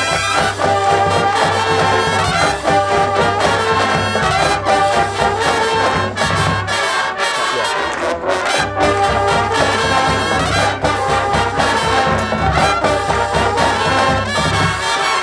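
Drum and bugle corps playing: a brass line of horns carrying a melody in held and moving notes, with drum strokes underneath.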